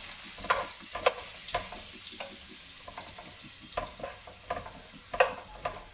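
Butter melting into hot oil in a pan, sizzling steadily, while a utensil stirs and scrapes against the pan with several short knocks, the loudest near the end.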